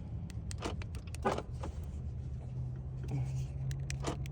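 2020 Jeep Gladiator's engine idling with a steady low hum, with several sharp clicks scattered through.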